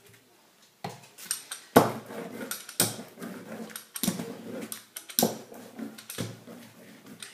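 Rubber brayer rolled back and forth through wet acrylic paint on a homemade printing plate. From about a second in, a new stroke starts sharply about once a second, with rolling noise between strokes.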